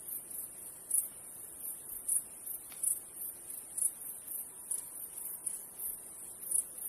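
Insects chirping in a high-pitched, continuous trill, swelling into louder pulses about once a second.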